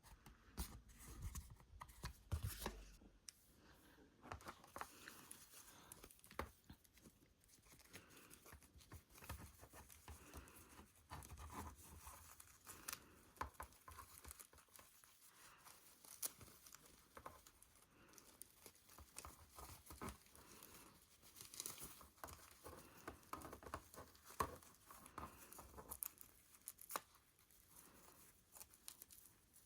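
Packaging being unwrapped by hand: faint, irregular crinkling, rustling and tearing with scattered small clicks.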